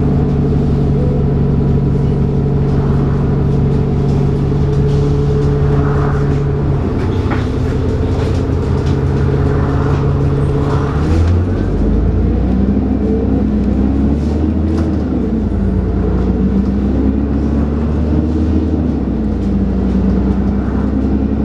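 A Dennis Trident 2 double-decker bus's diesel engine running under way, heard from on board. The note holds steady, then changes about halfway through and rises and falls several times as the bus pulls and eases off.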